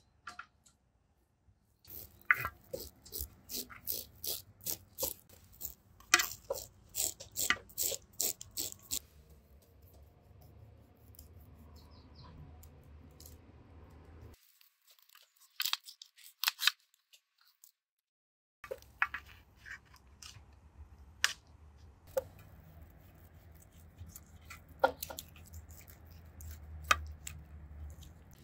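Food-preparation handling sounds: a fast run of sharp clicks, about three or four a second, for several seconds, then scattered single clicks and taps over a low steady hum.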